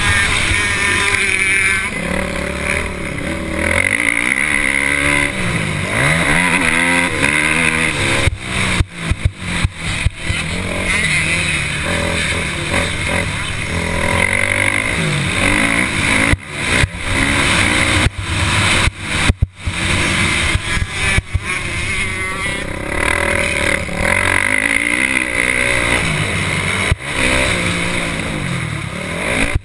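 Motocross bike engine revving up and down again and again as it accelerates and shifts around the track, heard from the bike itself. In a few stretches the sound turns choppy, with sharp dropouts and jolts.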